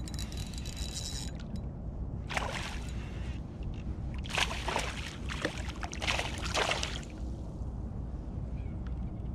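A spinning reel being cranked for about the first second, then three splashes, each about a second long, as a hooked small smallmouth bass thrashes at the surface close in. A low steady rumble runs underneath.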